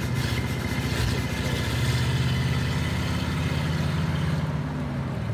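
1972 Ford F600 dump truck's engine running at low speed as the truck creeps forward, with a fine crackle of tyres on gravel that fades out about four seconds in.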